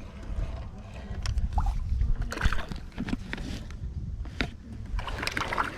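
Water sloshing and lapping around a small boat, with scattered knocks and clicks against the hull and gear.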